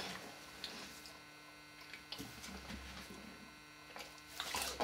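Low steady electrical hum in a quiet room, with a few faint taps about two to three seconds in and some louder rustling near the end.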